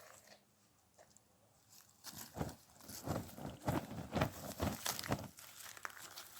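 Dry wheat straw crunching and rustling in quick repeated strokes, about three a second, starting about two seconds in.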